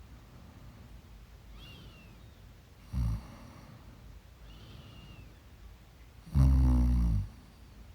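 Snoring in sleep: a short snore about three seconds in, then a longer, louder one of under a second near the end, with faint high whistling glides between them.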